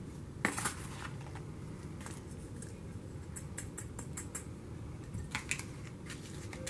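Light plastic clicks and taps as a small measuring cup scoops powder and knocks against plastic tubs. The loudest knocks come about half a second in and again near the end, over a low steady room hum.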